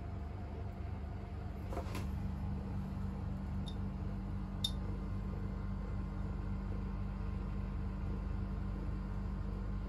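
Steady low electrical hum, with a few light clicks in the first half, two of them with a short high ring.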